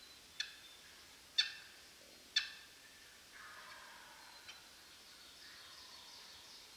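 Wild turkey putting: four sharp, single alarm notes about a second apart, the fourth faint.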